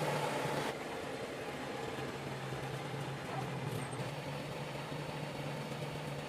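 Steady machine hum with a broad hiss, dropping a step in level about a second in.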